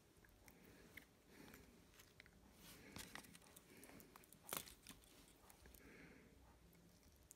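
Faint clicks and taps of cylindrical battery cells and tools being handled and set down. The sharpest tap comes about four and a half seconds in.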